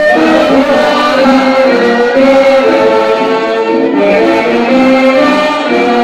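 A men's choir singing a kasidah, an Indonesian Islamic song, together to instrumental accompaniment, holding one note after another in a steady melody.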